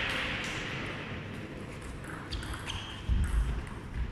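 Table tennis balls bouncing in a sports hall: a few scattered light clicks over a low hall hiss, with a couple of dull thumps about three seconds in.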